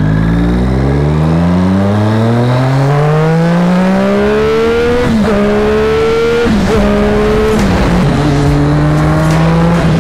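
Triumph Daytona 675's inline-three engine, fitted with a Yoshimura slip-on exhaust, accelerating hard: its note climbs steeply, drops sharply with upshifts about five and six and a half seconds in, then settles into a lower, slowly rising note.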